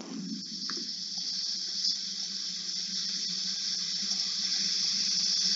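Steady rushing hiss of a Jeju Air airliner's cabin in flight, engine and airflow noise, growing slowly louder over the few seconds.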